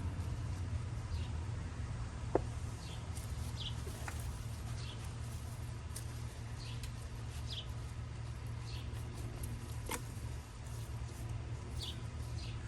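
Short, high chirps from a small bird repeating every second or so over a steady low rumble, with two sharp clicks.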